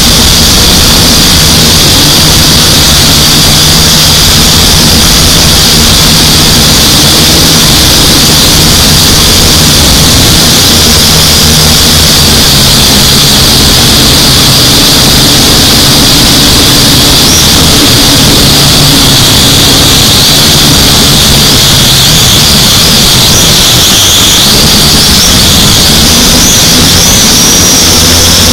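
UDI U818A quadcopter's four motors and propellers whining steadily, heard loud and close from the drone's own onboard camera. About three-quarters of the way through, the whine dips and then climbs in pitch as the motor speed changes.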